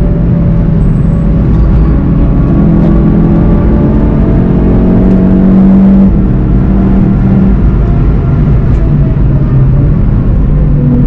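In-car sound of a VW Golf 7 GTI TCR's turbocharged 2.0-litre four-cylinder pulling hard at high speed, over constant road and wind rumble. The engine note climbs slowly through the first half, then shifts as the car comes off full throttle later on.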